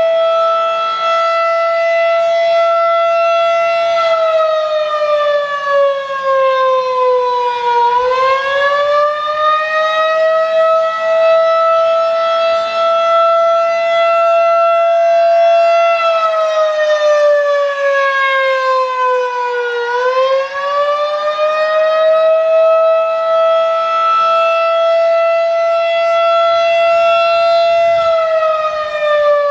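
Federal Signal 2001-DC electromechanical warning siren sounding a single loud tone. The pitch holds steady, then sags over about four seconds and climbs back. This slow dip comes three times, about twelve seconds apart, the last one starting near the end.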